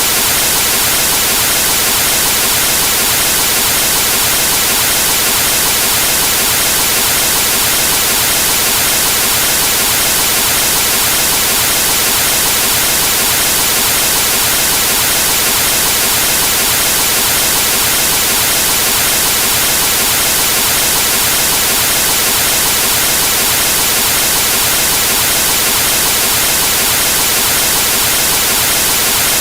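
Television static: the steady, loud white-noise hiss of an analogue TV tuned to no channel, showing snow.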